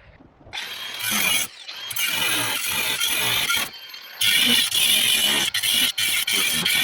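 Power tool working on the floor pan's old riveted sheet-metal patch, running in three spells with two short breaks.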